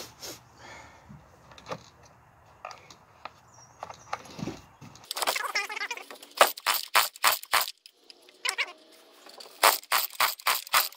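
Two-stroke McCulloch home-grade chainsaw being pull-started. From about five seconds in, repeated pulls on the recoil starter turn the engine over in quick runs of sharp pops and clicks, several a second, without it catching. The owner finds the engine flooded from priming.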